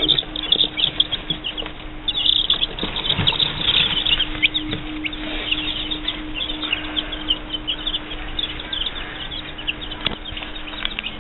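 A brood of newly hatched chicken chicks peeping constantly, many short high cheeps overlapping, over a steady low hum.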